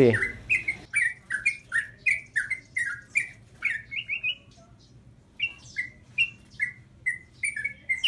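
Caged sooty-headed bulbul (trucukan) calling: a quick run of short chirping notes that sweep up or down in pitch, about three a second. It breaks off for about a second a little past the middle, then starts again.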